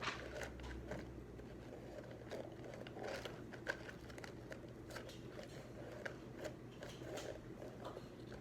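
Quiet desk sounds of studying: irregular small clicks, taps and scratches of pens and paper being handled, over a steady low hum of room tone.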